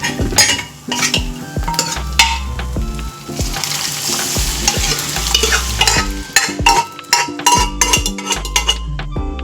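Spoon stirring and scraping food frying in a pan, with repeated knocks of the spoon against the pan. A heavier sizzle rises about three seconds in and lasts a few seconds.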